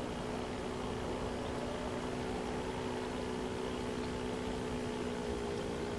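Cartoon boat sound effect: a steady engine drone with a low hum over an even wash of sea noise, unchanging.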